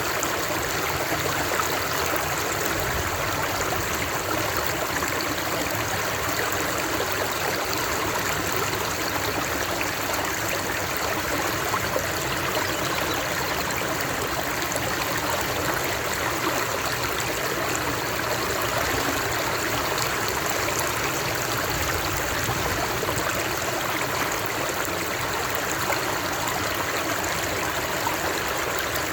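Flowing water running steadily, an even wash of sound with no breaks or changes.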